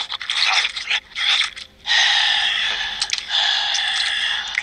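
Cartoon sound effects: a few short, wet slurping bursts as a character licks another's face, then, about two seconds in, a long, steady, harsh hissing snarl.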